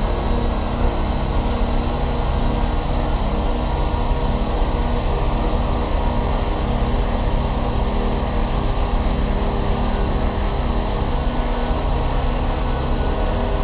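A steady, dense low drone made of several held tones over a rumbling haze, unchanging in level.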